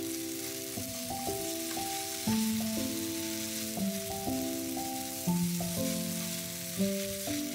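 Rice noodles and vegetables sizzling in a hot frying pan as they are stirred with chopsticks, over background music of steady notes changing every half second or so.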